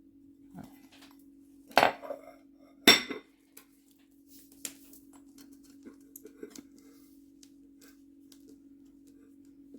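A bowl knocking against a hard surface twice, a sharp clink about two seconds in and another about three seconds in, followed by lighter clicks and handling noises as it is turned and measured.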